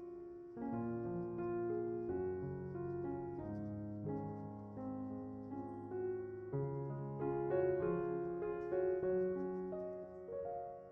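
Background piano music, a slow gentle melody over held chords.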